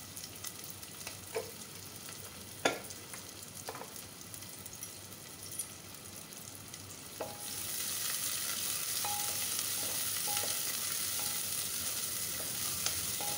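Sliced onions frying in hot oil in an aluminium pressure cooker, with a few light clicks at first. About halfway through, the sizzle suddenly gets much louder and steady as a wooden spoon stirs the onions.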